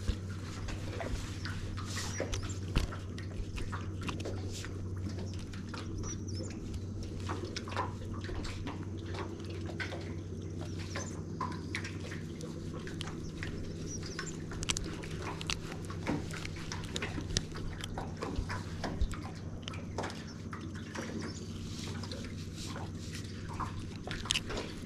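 Scattered clicks and taps of a small crappie being handled and unhooked, over a steady low hum.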